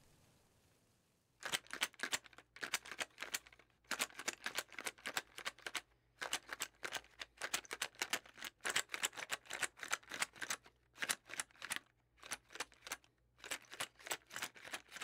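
Rapid runs of sharp clicking taps, each run lasting about a second with short pauses between, starting about a second and a half in, over a faint steady low hum.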